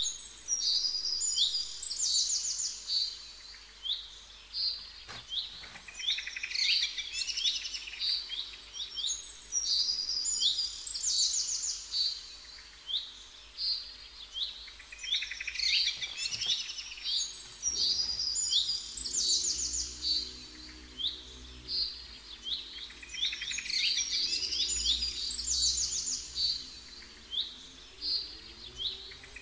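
Songbird chirps and quick trills, high-pitched, in a sequence that repeats almost identically about every eight seconds, like a looped birdsong track.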